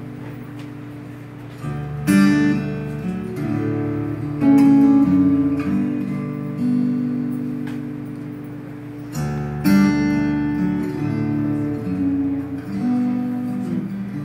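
Solo acoustic guitar playing a picked melody over ringing bass notes, with louder accented notes about two, four and a half and ten seconds in.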